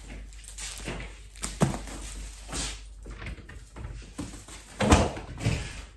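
Kitchen cupboard door being opened and closed while packaged groceries are handled, with rustling and a few knocks. The loudest thump comes near the end.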